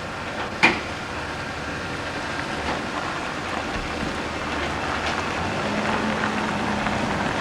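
Steady rushing road noise of a vehicle on the move, with a sharp knock about half a second in and a low hum joining in the second half.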